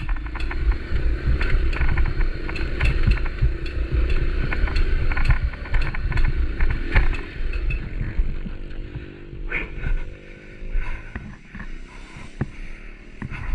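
Motorcycle riding over a rough, slippery trail, its engine running under a heavy rumble with many short knocks and rattles. After about eight seconds it gets quieter and a steadier engine note comes through.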